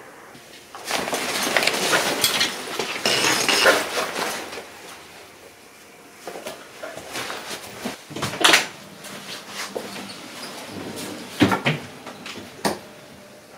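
Handling noise of gear being moved: a stretch of rustling in the first few seconds, then several separate sharp knocks and clicks, as a portable speaker is picked up off a metal mesh table.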